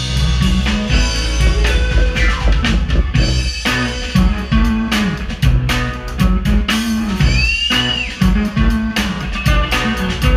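Live band playing an instrumental passage: drum kit keeping a steady beat under electric guitar, keyboards and a moving bass line. About seven seconds in, a high note bends up and falls back.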